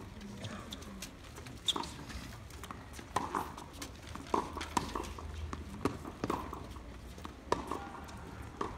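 Tennis balls struck by rackets and bouncing on a hard court in a warm-up rally: a string of sharp pocks at irregular intervals, about one a second.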